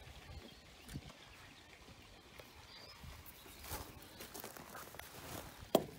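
Scattered light knocks and taps on a wooden deck, with one sharp knock near the end.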